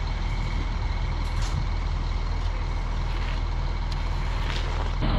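Heavy diesel truck engine running steadily, the concrete pump truck standing by to pump the slab pour, with a faint steady whine over it and a few light clicks.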